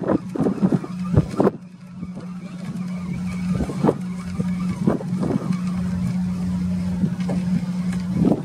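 Wind buffeting the microphone, then from about a second and a half in an engine running steadily at one low pitch, with a few gusts of wind over it.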